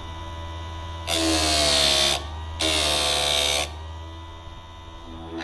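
Sadko SCS 85 electric chain sharpener running with a steady motor hum as its grinding wheel is brought down onto a saw-chain tooth twice, each grinding pass lasting about a second. The passes are kept short so as not to overheat the tooth.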